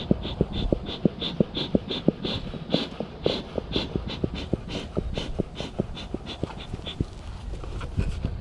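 Bee smoker's bellows being pumped by hand, a quick steady train of puffs at about three a second, puffing smoke over the bees to calm them.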